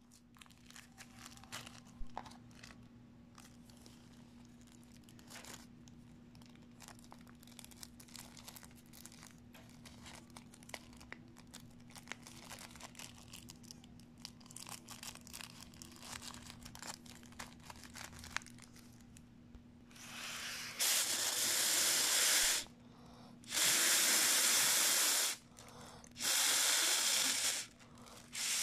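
Thin foil balloon crinkling as it is handled, then air hissing through its valve as it is inflated: three long hisses of about two seconds each with short pauses between, and a fourth starting at the end.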